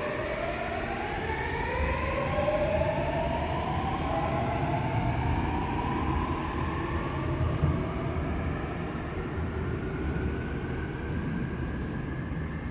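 Seoul Subway Line 7 train pulling out: the whine of its traction motors rises in several tones as it speeds up, over a steady low rumble of the train running.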